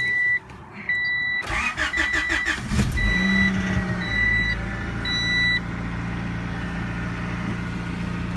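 1992 Honda Accord's four-cylinder engine cranking briefly and catching at once, then settling into a steady idle; it starts promptly with its newly replaced coolant temperature sensor, which the owner blames for its earlier hard starting. A dashboard warning chime beeps repeatedly over the start and stops a few seconds in.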